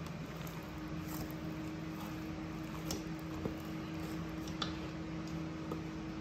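Quiet kitchen handling sounds over a steady low hum: a few soft, short clicks and taps.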